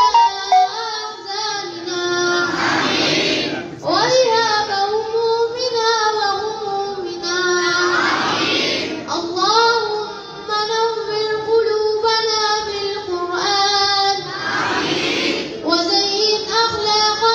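A group of children singing in unison: a melodic chant in long held lines that bend in pitch, broken by short pauses every few seconds.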